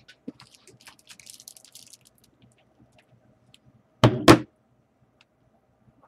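Light clicking and rustling of trading cards being handled, then a cardboard box of cards knocked down on a tabletop twice in quick succession about four seconds in, the loudest sounds.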